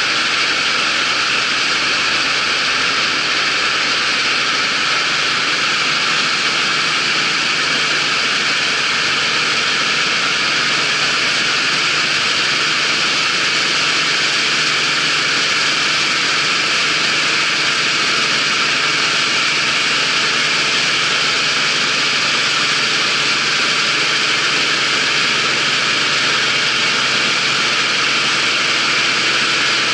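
Claas Dominator 88 combine harvester running steadily: a loud, even rush of engine and machinery that holds the same pitch and level throughout.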